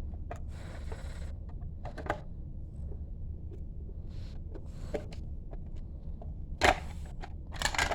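Handling and rustling noises as a phone camera is set down and objects are moved: scattered clicks and short rustles, with a sharp knock about six and a half seconds in. A steady low hum runs underneath.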